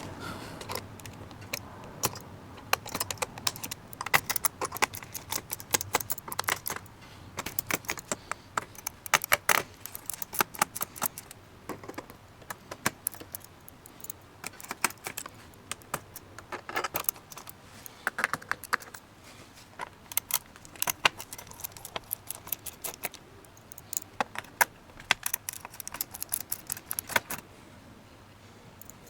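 Small screwdriver working the screws out of a laptop's plastic base, with screws clinking: quick clusters of sharp metallic clicks and taps separated by short pauses, in sped-up footage.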